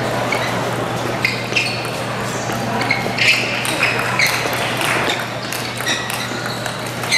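Table tennis rally: the ball clicks sharply off the players' paddles and bounces on the table in quick alternation, about two hits a second, with a crowd murmuring in the hall behind.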